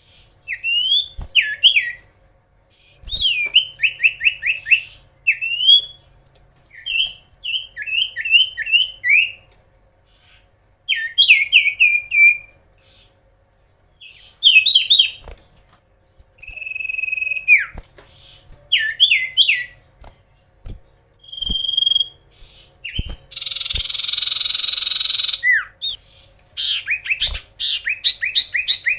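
Common iora (cipoh/sirtu) singing in repeated bursts of short, sharp, falling whistled notes with brief pauses between phrases. A harsh rasping sound lasts about three seconds near the end.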